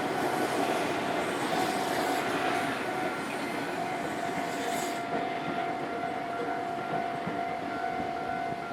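Train passing over a railway level crossing: wheels running on the rails, with a steady high tone held above the rumble.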